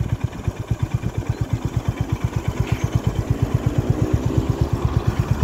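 Honda CB350RS's single-cylinder engine idling steadily, about ten even exhaust pulses a second.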